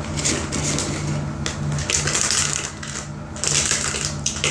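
A toy surprise egg being cracked and crushed open by hand, crackling and crunching in three short bouts.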